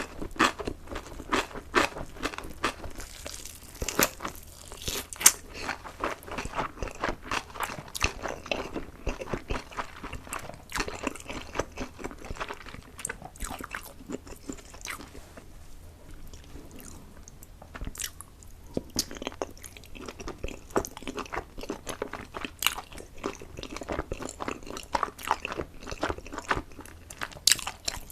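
A person chewing and biting food close to the microphone: a dense run of crunches and wet clicks, thinning out for a few seconds in the middle.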